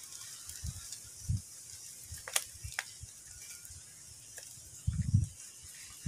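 Gloved hands pressing dry fibre and soil around coleus cuttings in a hanging basket: faint rustling with two sharp crackles midway, and low dull thumps about a second in and again near the end.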